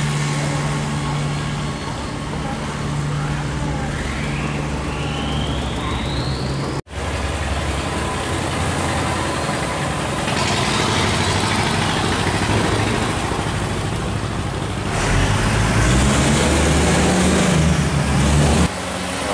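Engines of river boats running as they motor past, with the rush of water from their wakes. A whine rises in pitch about four to six seconds in. The engine and water noise grow louder from about ten seconds on as a cargo boat passes close by.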